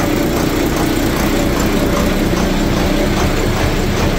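Tour boat's engine running steadily and loud, heard close to the engine room below deck.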